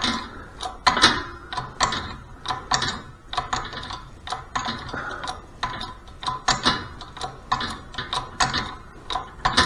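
Shop press being worked slowly to lower its ram onto a seal-installer tool: irregular light metallic clicks and ticks from the press mechanism and the steel parts.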